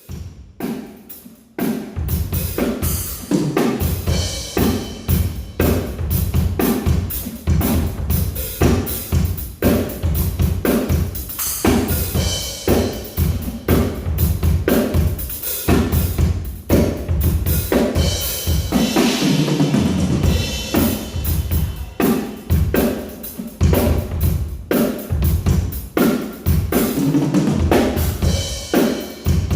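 Drum kit played through a sound check, starting about a second and a half in: a steady groove of bass drum and snare hits with cymbals.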